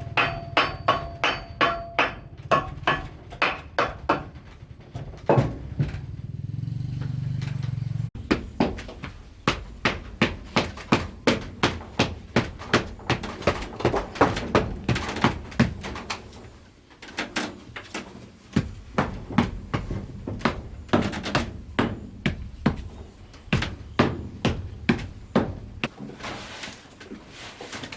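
Repeated blows of a hand tool on wood, about three a second with short pauses. The first strikes carry a faint ringing tone, and a low hum runs under the first eight seconds.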